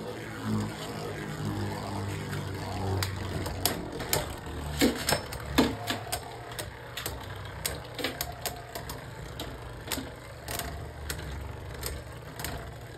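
Two Beyblade Burst spinning tops whirring in a plastic stadium, with sharp plastic clacks as they hit each other, the loudest about five seconds in.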